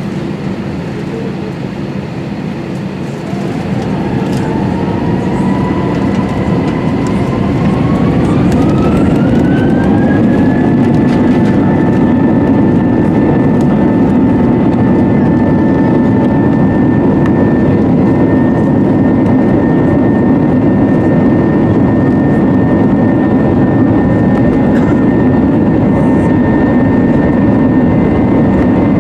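Airbus A320 jet engines spooling up to takeoff power. A whine rises in pitch for several seconds, starting about four seconds in, with the rush of engine and runway noise growing louder, then both hold steady at full takeoff thrust.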